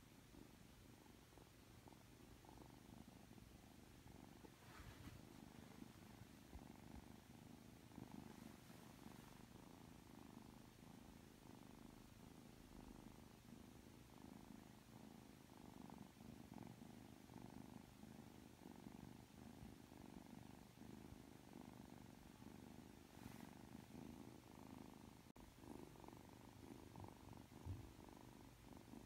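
Three-month-old ragdoll kitten purring steadily as it is stroked, a faint, fast-pulsing hum.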